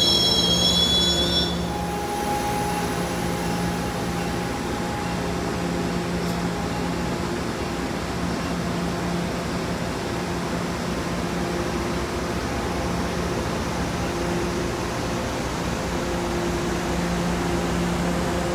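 MBTA commuter train's wheel and brake squeal dies away about a second and a half in as the train comes to a stop. Then a steady hum of the standing train, with a few held tones, as it idles at the platform.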